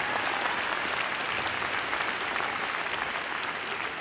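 Large audience applauding: dense, continuous clapping that eases slightly near the end.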